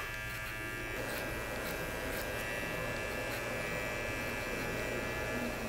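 Electric hair clipper running with a steady buzz as its blade cuts hair on the side of the head.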